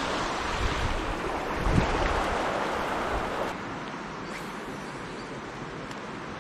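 River water rushing over a shallow, stony riffle, with wind rumbling on the microphone. About three and a half seconds in it drops to a quieter, steady flow.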